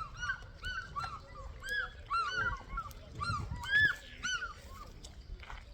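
A flock of birds calling: many short calls that rise and fall in pitch, overlapping one another. They are loudest a little under four seconds in and thin out near the end.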